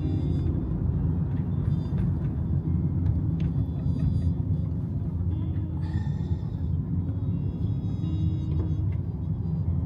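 Steady low rumble, with faint tones coming and going above it.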